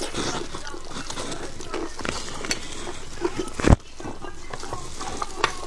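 Close-miked eating sounds of spicy braised beef bone marrow: wet chewing, lip smacks and small clicks, with one loud sudden noise just before four seconds in.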